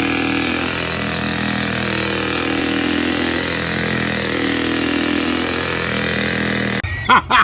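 An engine running steadily at idle with an even hum. About a second before the end it cuts off abruptly and a run of short, repeated loud sounds begins.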